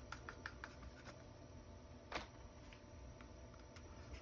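Faint light ticks of a wooden stick stirring thinned modelling putty in a small cup, with one sharper tap about two seconds in.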